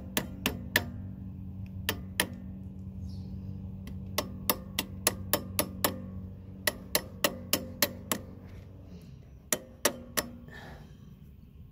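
Steel pliers tapping a straightened retaining pin out of a Honda Rebel 1100's footpeg mount: sharp metal-on-metal taps in quick runs of about three a second, with short pauses between runs. Underneath is a low steady hum that fades out near the end.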